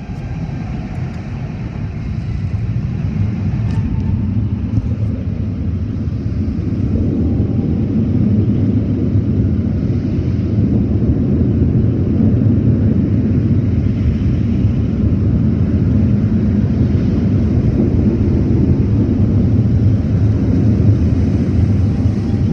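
Automatic car wash tunnel machinery heard from inside the car's cabin: a loud, steady low rumble that builds over the first eight seconds or so and then holds.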